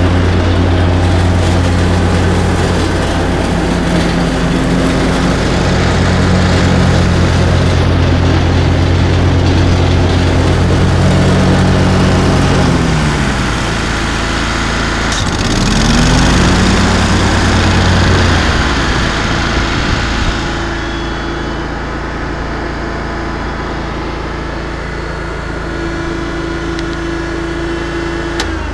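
Zero-turn lawnmower engine running steadily; about halfway its speed sags and then climbs back up, with a single click in between. In the last third it runs somewhat lower and quieter.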